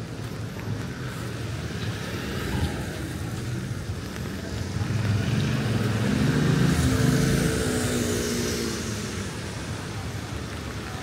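A car passes on the wet street: its engine note and the hiss of tyres on the wet road swell to a peak about six or seven seconds in and fade away, over a steady wash of street noise.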